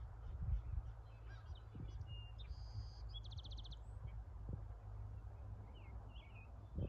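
Wild birds calling in the background: scattered short high chirps, with a buzzy note and then a quick, even trill about three seconds in. Under them runs a low, steady rumble.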